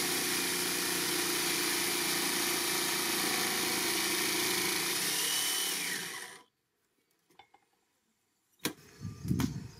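Single-speed corded jigsaw with a metal-cutting blade running flat out in hardened Hardox steel plate, a steady rasping buzz that stops abruptly about six seconds in. The hard steel damages the blade's teeth within seconds. A knock and faint handling sounds follow near the end.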